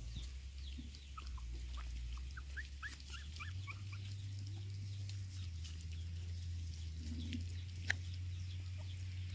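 Puppies whimpering and squeaking as they crowd a food bowl, a quick run of short high squeaks in the first few seconds, with scattered small clicks and rustles of dry leaves under their feet over a steady low rumble.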